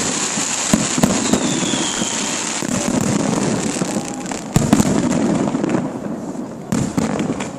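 Fireworks display: a dense stream of crackling shell bursts with sharp bangs throughout, and a heavier volley of bangs about four and a half seconds in.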